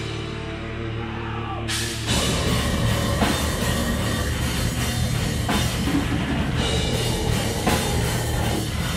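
Metal band playing live with distorted guitars, bass and drums. A held low chord rings out first, then about two seconds in the drums and the full band crash in together and play on hard.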